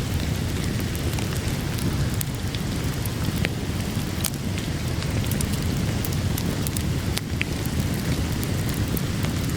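Steady rain with a low rumble underneath, and scattered sharp crackles and pops from a wood fire.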